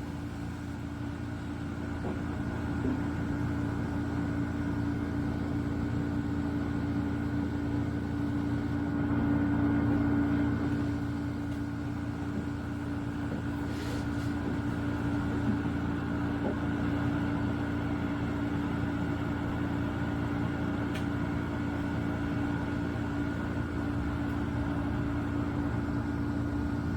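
Kesnos 80-pint dehumidifier running: a steady hum of compressor and fan with a constant tone over a low drone, swelling slightly about ten seconds in.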